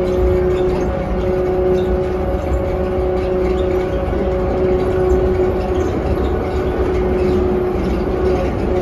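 Automated airport people mover (sky train) running at speed, heard from inside the car: a steady rumble with a steady whine held over it.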